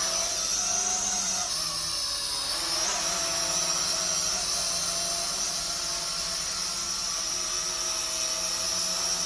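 IDEA10 GPS quadcopter drone's motors and propellers whining steadily as it lifts off and hovers, the pitch shifting a little now and then as it holds position.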